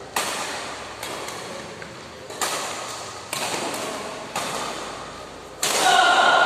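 Badminton rackets striking a shuttlecock in a fast rally: six sharp smacks, about one a second, each echoing in a large sports hall. Near the end a loud held high-pitched tone rings out over the play.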